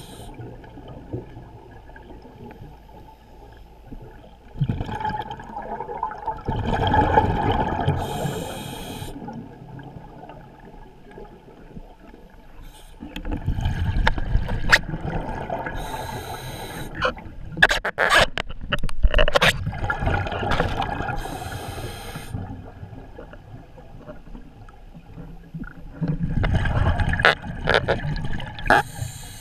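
A scuba diver's regulator breathing underwater: hissing inhalations alternate every several seconds with gurgling, rumbling rushes of exhaled bubbles. A cluster of sharp clicks comes midway.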